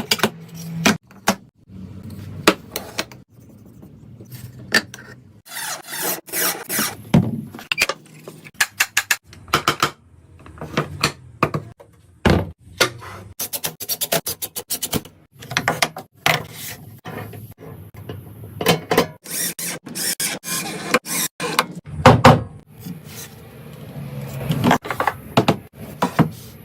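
Irregular knocks, taps and scraping, like tools working on wood.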